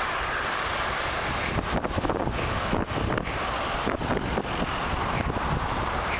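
Wind buffeting a helmet-mounted camera's microphone while cycling, a steady rush with frequent flutters, over the noise of car traffic on the road alongside.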